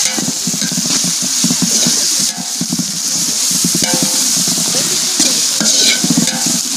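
Sliced onions and green chillies frying in oil in a large aluminium pot, with ginger-garlic paste just added: a steady sizzle while a metal ladle stirs fast and scrapes the pot.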